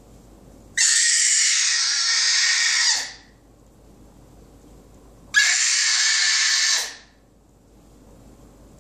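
Baby screeching twice: two long high-pitched screams, the first about two seconds long and the second about a second and a half, with a pause between them.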